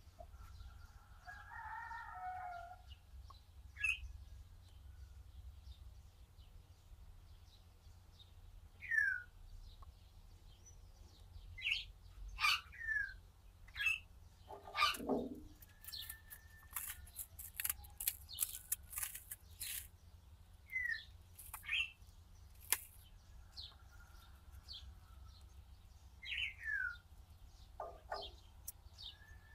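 Small birds chirping outdoors: scattered short, sharp calls that drop in pitch, with a warbling call about two seconds in and a run of sharp clicks and rustles around the middle, over a steady low rumble.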